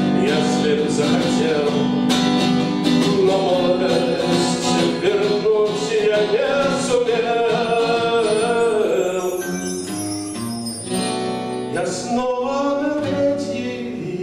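Acoustic guitar strummed alongside a bayan (button accordion), playing a live folk song.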